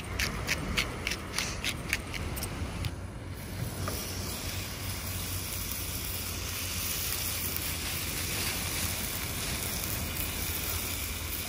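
Dry-aged T-bone steak sizzling steadily in a hot pan, the sizzle setting in about three to four seconds in. Before it comes a run of quick clicks, about three or four a second.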